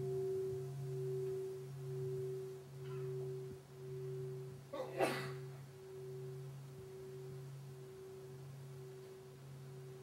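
A large meditation bell ringing on, its low tone pulsing gently and slowly dying away. A short burst of noise from the room comes about halfway through.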